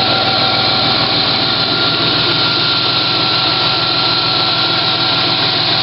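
A 1994 Chevrolet S-10 Blazer's 4.3-litre V6 idling steadily, a constant running sound with a thin steady whine over it, while the engine warms up to test a newly fitted coolant temperature sending unit.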